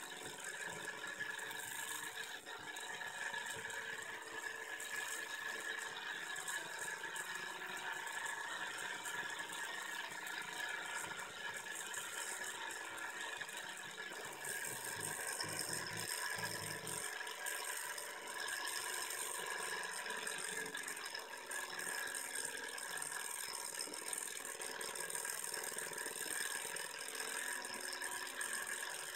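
HB31 Stirling engine running on its burner flame: a steady rattle and whir from the spinning flywheel and piston linkage.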